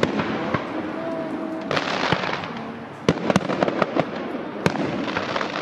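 Fireworks exploding at a public display: sharp bangs, with a quick run of cracks about three seconds in and another bang shortly after. Crackling, hissing bursts come about two seconds in and again near the end.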